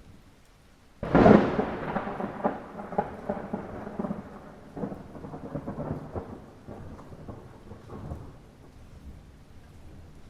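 A close thunderclap in light rain: a sudden sharp crack about a second in, then a long crackling rumble that slowly fades, over a steady patter of rain. A new roll of thunder begins to build near the end.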